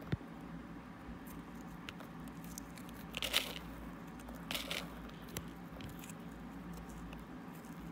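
Fingertip pressing and crumbling coarse paradichlorobenzene mothball crystals: faint, crisp crackling throughout, with two louder short crunches, a little after three seconds in and about four and a half seconds in.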